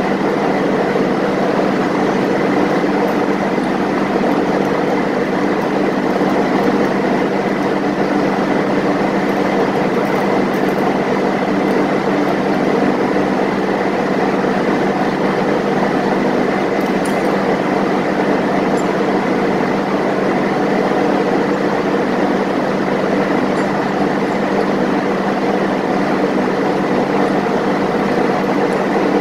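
Steady drone of a ship's engine-room machinery, running diesel generators, with several steady humming tones. A few faint metallic clicks of hand tools now and then.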